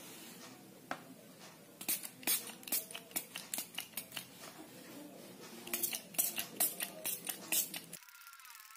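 Small finger-pump spray bottle being pumped in quick succession, each stroke a short click and spritz of liquid onto a plastic cutting board. The sprays come in two runs, about five a second.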